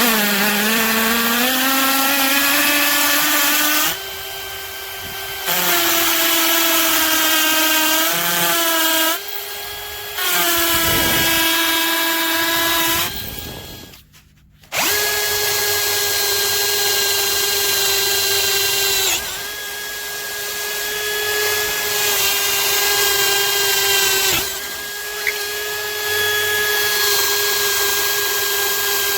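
Bosch UniversalImpact 18V-60 cordless drill running under load, drilling a hole. Its motor whine climbs in pitch as it spins up, then shifts and dips as the bit bites. The motor stops briefly about halfway through and starts again.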